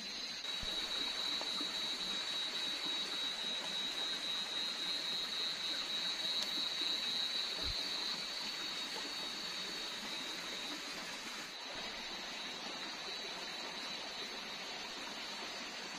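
Night-time tropical forest ambience: a steady high-pitched insect drone over an even rushing hiss, the drone easing off about eleven seconds in.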